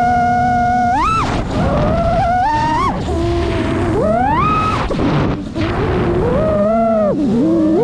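FPV quadcopter motors whining, their pitch sweeping up and down with the throttle, with sharp climbs about one, three and four and a half seconds in and a dip near the end. Wind rushes over the onboard camera's microphone underneath.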